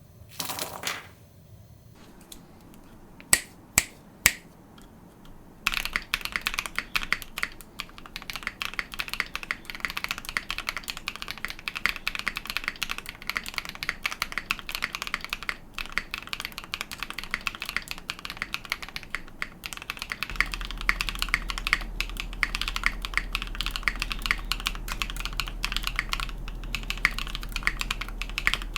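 Mechanical keyboard with Icey Ice Mango Berry tactile switches (Huano-made, factory-lubed, POK housing and POM stem): three single keystrokes, then fast continuous typing from about six seconds in. A low steady hum joins about two-thirds of the way through.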